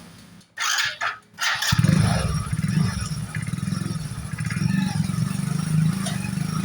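Hero HF Deluxe motorcycle's single-cylinder engine running steadily in neutral, coming in abruptly just under two seconds in after two short scraping noises.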